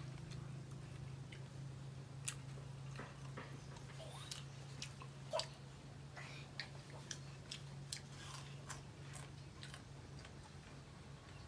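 A person biting and chewing food, with scattered faint crunches and mouth clicks, over a steady low hum.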